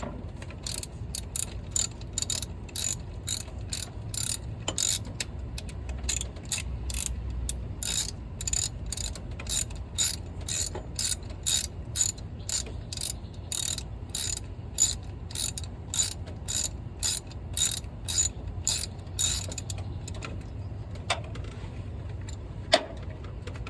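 Hand ratchet wrench clicking in a steady train of short strokes, about two a second, as it backs out an alternator mounting bolt; the clicking stops a few seconds before the end.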